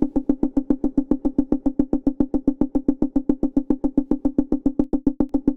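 Serum software synthesizer playing a pluck patch: one note repeated in quick, even staccato pulses, about nine a second, at a steady pitch. Tube distortion, compression and reverb are on the sound.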